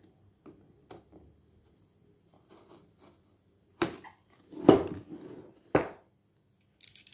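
A cardboard box being handled and opened: a few faint clicks, then sharp knocks and a louder scrape between about four and six seconds in, and a burst of papery rustling and tearing near the end, as the seal is broken.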